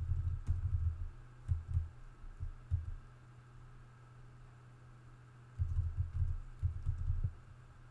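Computer keyboard keystrokes heard as muffled low thuds in short irregular clusters, over a faint steady hum. There is a run of taps at the start, a few single taps, then a longer run about six seconds in.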